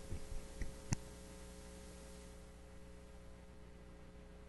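Low steady mains hum from the microphone and sound system, with a few soft knocks and one sharp click in the first second as the desk microphone is handled.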